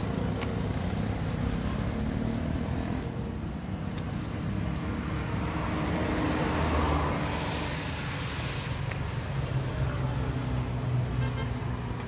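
A motor vehicle's engine running, a steady low hum with no break.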